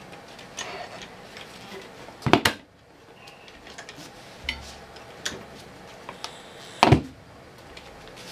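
Hand work on a motorcycle tire clamped in a manual tire changer: scattered light clicks and knocks, with two louder double clunks about two and a half and seven seconds in.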